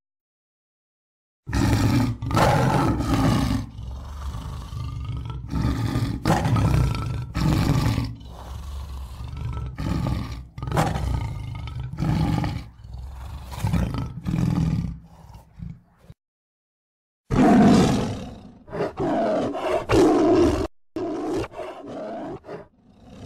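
Tiger roaring and growling: a run of loud, rough roars that starts about a second and a half in, breaks off briefly two-thirds of the way through, then resumes.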